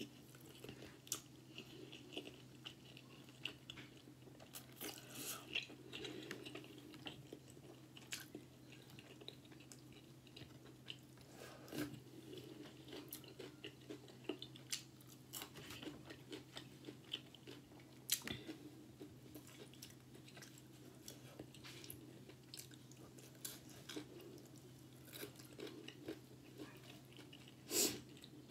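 Close-miked chewing and mouth sounds of a person eating homemade tortilla-crust pizza, with scattered small crunches and clicks. There is one louder bite near the end.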